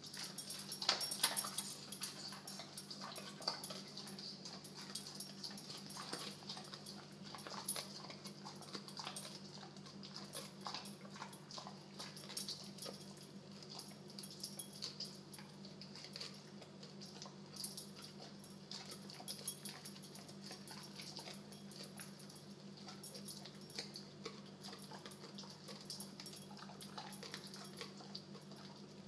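American bulldog chewing and gnawing a twisted bully stick, with many irregular short crunches and wet clicks, busiest about a second in. A steady low hum runs underneath.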